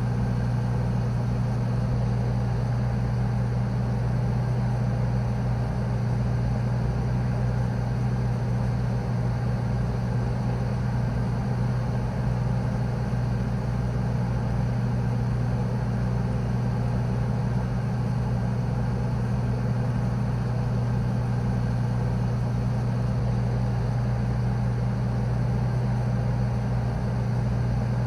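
Morgue freezer's low, continuous hum: a steady, deep mechanical drone with a rumble beneath it, cold and unchanging.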